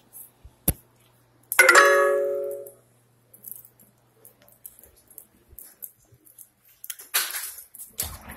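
A single loud electronic chime about one and a half seconds in, ringing and fading away over about a second, after a sharp click just before it. Faint scattered clicks follow, with a short noisy rush near the end.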